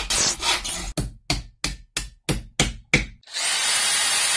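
Rasping strokes, continuous at first and then about seven short separate strokes at roughly three a second, followed about three seconds in by a steady hiss with a thin high whistle.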